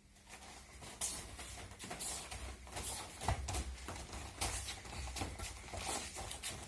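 Aikido practice on mats: bare feet shuffling and stepping, with soft thuds and rustling cloth at an irregular pace of several a second.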